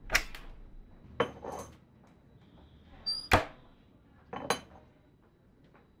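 Sharp clacks and knocks of crockery and metal coffee gear being handled on a counter: four knocks or quick pairs of knocks over about four and a half seconds. The third is the loudest, with a brief metallic ring.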